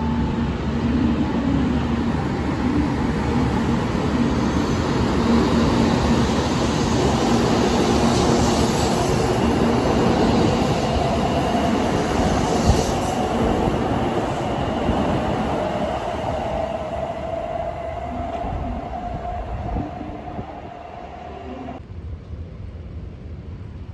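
Kyushu Shinkansen bullet train running past close by at low speed: steady rolling noise with an electric motor whine over it. The sound fades from about two-thirds of the way in and drops off sharply near the end.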